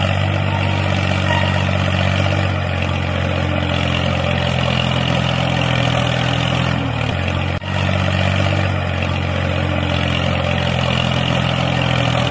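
Tractor engine running steadily at a low, even pitch, with a brief break about seven and a half seconds in.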